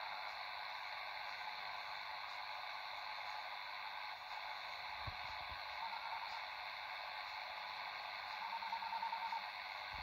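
Shortwave AM hiss and static from a Degen DE-1103 receiver's speaker, tuned to 6819 kHz with a weak signal. Near the end a faint tone pulses rapidly under the noise.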